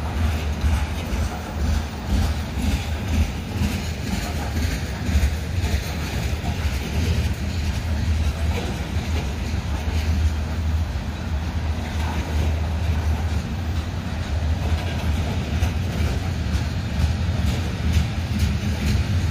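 Covered hopper cars of a long freight train rolling past close by: a steady low rumble of steel wheels on rail, with frequent short clicks and knocks as the cars go by.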